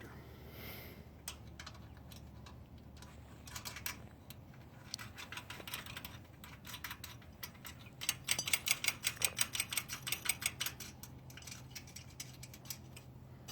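Metal hardware clicking as nuts, washers and a wrench are handled on the bolts of a trailer-tongue bracket. Scattered light clicks give way to a run of quick, even clicks for a couple of seconds past the middle.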